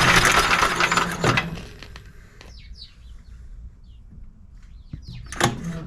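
Recoil pull-starter of a Craftsman snowblower yanked to crank the engine with its spark plug out, fuel-air mix puffing from the open plug hole. There is one long pull at the start, a quieter gap with a few faint high chirps, and a second pull near the end.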